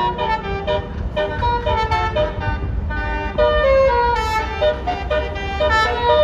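Basuri telolet horn on a bus playing a quick melody: several horn tones sounding together and jumping from note to note every fraction of a second. Under it is the steady low rumble of the bus engine.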